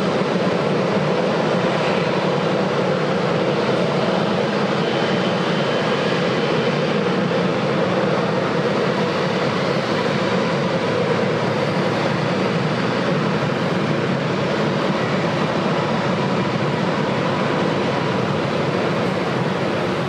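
Jet airliner engines running, a steady, even noise with a faint high whine, neither rising nor falling.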